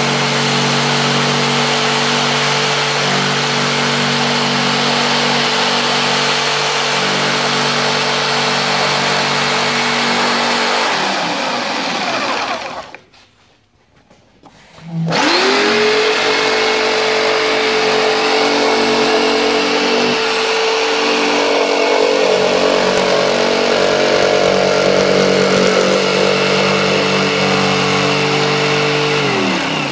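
Black+Decker corded jigsaw sawing through plywood, its motor running at a steady pitch. It winds down and stops about halfway through, starts again with a quick rising whine a couple of seconds later, saws on, and winds down again near the end.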